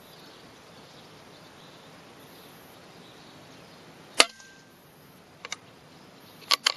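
Edgun Matador PCP air rifle firing once, a single sharp crack about four seconds in, over a steady low hiss. A few lighter mechanical clicks follow near the end.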